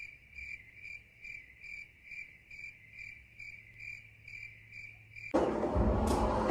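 Chirping-cricket sound effect edited in: a steady chirp repeating a little over twice a second, the stock gag for an awkward silence. It cuts off abruptly near the end, and loud voices follow.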